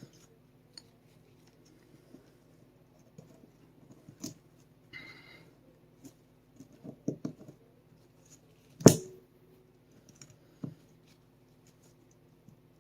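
Small metal parts of a Sig Sauer P365 striker assembly clicking and tapping as gloved hands try to compress the striker spring and fit the parts together: scattered light clicks, with one sharp, louder click about nine seconds in.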